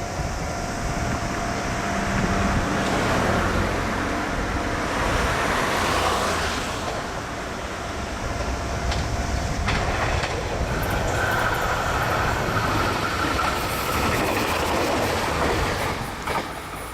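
A train running past over a level crossing, its noise dropping away near the end.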